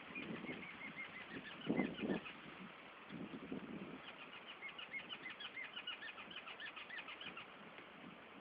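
Small birds bathing, wings fluttering in water in three short flurries, the loudest about two seconds in, over a run of many quick, high chirps.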